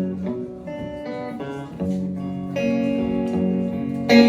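Fender Telecaster electric guitar played solo, picking sustained chords and single notes with a few chord changes, then a louder strummed chord near the end.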